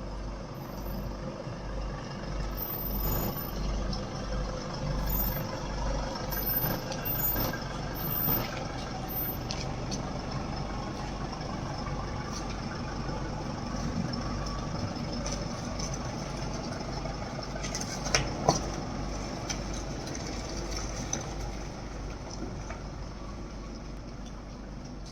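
Road vehicle on the move: steady engine and road noise with a throbbing low rumble, and a few sharp knocks about 18 seconds in.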